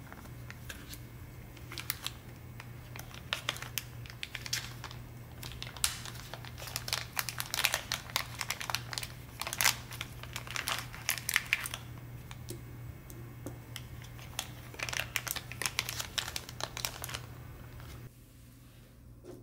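Clear plastic packaging bag crinkling and crackling in irregular bursts as it is handled and opened, stopping shortly before the end. A steady low hum runs underneath.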